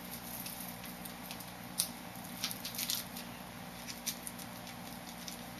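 Fingers picking and tugging at a sealed food package that won't open, giving scattered small crinkles and clicks, with a brief cluster about halfway through. A steady low hum runs underneath.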